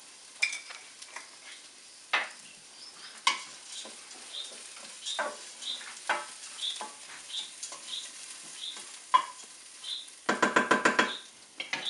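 Wooden spoon stirring and scraping rice and onion browning in a stainless steel pot, with a light sizzle underneath and scrapes about every half second. Near the end comes a fast rattling burst about a second long.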